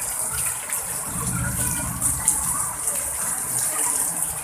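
Heavy rain pouring down in strong wind, a steady loud hiss with a low rumble underneath.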